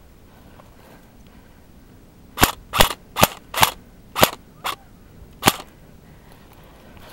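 Airsoft gunfire in semi-automatic: seven sharp single shots in about three seconds, starting about two and a half seconds in, the sixth fainter.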